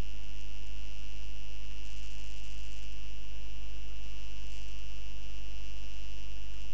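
Steady electrical mains hum with a thin, constant high whine and a faint hiss over it.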